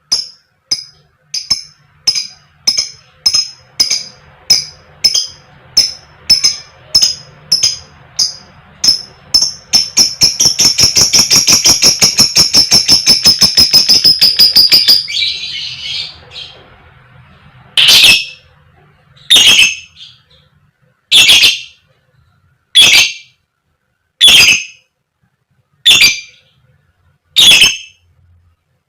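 Lovebird calling 'koek koek': sharp high chirps about two a second that speed up into a fast, loud chattering trill for about five seconds, then single loud calls about every second and a half.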